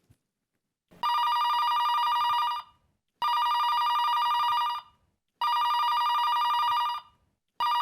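Telephone ringing: three even rings about a second and a half long with short gaps between them, then a fourth ring that is cut off short as the phone is answered.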